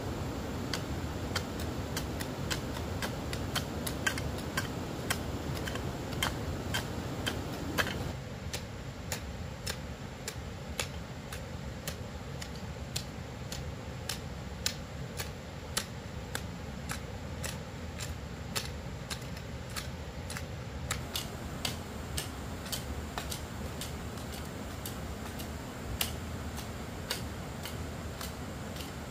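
A steady run of sharp ticks or taps, about two to three a second, over a low background rumble.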